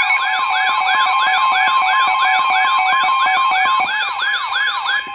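Loud electronic alert siren: a tone sweeping up and down quickly, about three times a second, over a steady high alert tone. The highest overtones drop out about four seconds in, and the sweeping stops just at the end.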